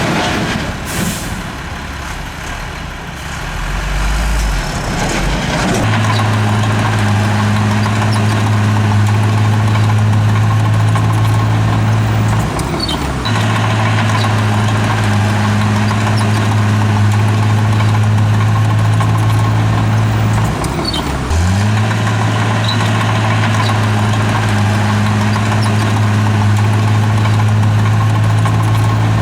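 Heavy diesel engine of earthmoving machinery running hard and steadily. It picks up about six seconds in and dips briefly twice before settling back to the same pitch.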